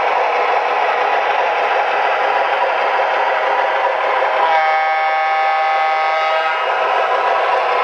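MTH Premier O-gauge model of a PRR Baldwin Sharknose diesel rolling along the track with a steady clatter, its sound-system horn blowing once for about two seconds a little past the middle.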